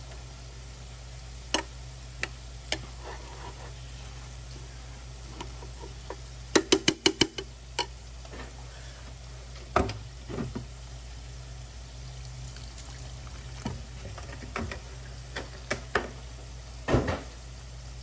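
Metal spoon stirring cooked rice in a stainless steel pot, with scattered scrapes and knocks against the pot over a steady low hum. About seven seconds in, a quick run of about six ringing taps on the pot.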